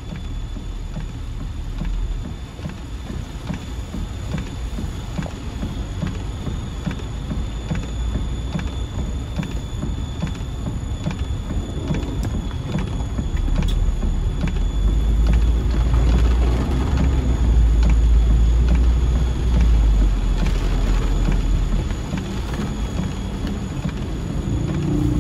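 Car cabin noise while driving through heavy rain: a steady low rumble of engine and tyres on the wet road, with rain hitting the windshield. The rumble grows louder about two-thirds of the way through, then eases.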